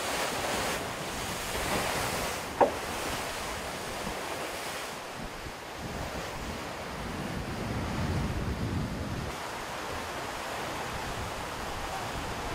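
Wind and rushing water on deck of a Volvo Ocean 65 racing yacht sailing at sea, with waves surging against the hull and wind buffeting the microphone. A single sharp knock comes about two and a half seconds in, and a deeper wave surge swells about eight seconds in.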